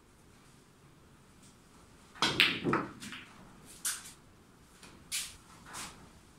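Snooker cue striking the cue ball, a quick cluster of sharp clicks about two seconds in, then three more single knocks over the next few seconds as the ball travels the table and comes off the cushions.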